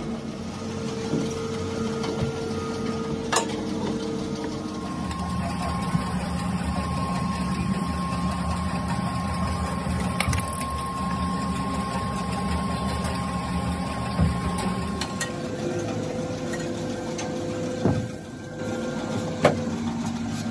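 Rubber hose factory machinery running with a steady hum, a few knocks over it. The pitch of the hum changes a couple of times.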